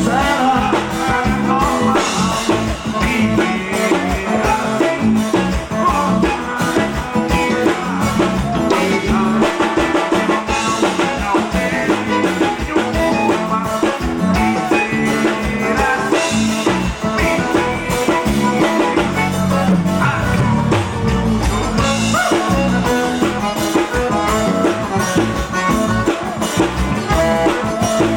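Live forró band music with singing, loud and steady, over a regular dance beat.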